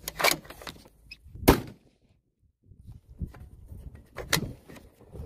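A few sharp clacks and knocks from a 6mm ARC bolt-action precision rifle being handled at the shooting bench, the loudest about a second and a half in and another near the end.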